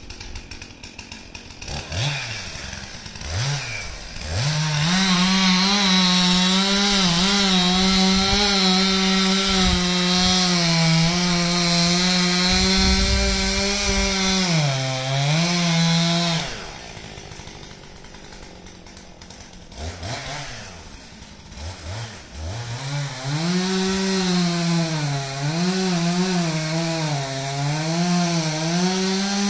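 Two-stroke chainsaw cutting into the trunk of a large poplar: a few short revs, then a long full-throttle cut with the engine pitch dipping under load. Partway through it drops to idle for a few seconds, then it is back in the cut, its pitch dipping and recovering repeatedly as it bogs in the wood.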